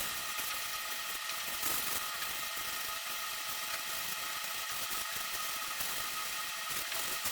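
A power sander running steadily with a high, even whir, sanding on the truck's body panel.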